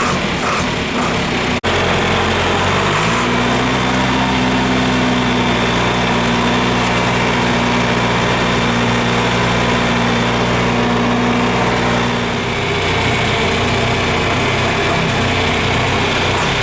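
An old small farm tractor's engine running. About three seconds in it revs up and holds a steady higher speed, then drops back to a lower idle about twelve seconds in.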